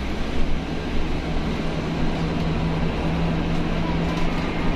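Interior noise of a moving city bus: a steady low road rumble with a constant drivetrain hum that holds one pitch and grows a little stronger about halfway through.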